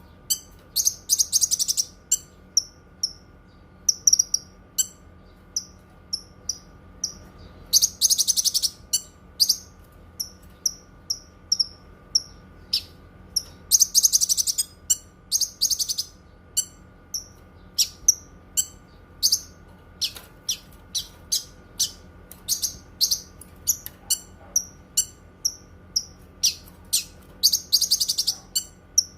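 Cucak kinoi singing: a steady string of short, high chirps broken by several rapid buzzing trills, the loudest about eight and fourteen seconds in. A faint steady hum runs underneath.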